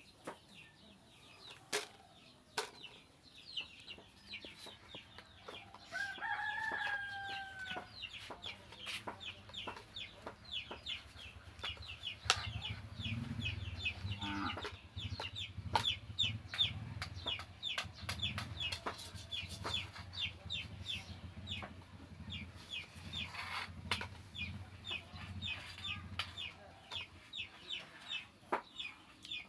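Backyard chickens: a rooster crows once about six seconds in, over a steady run of short high peeps, about four a second. A low rumble runs through the middle.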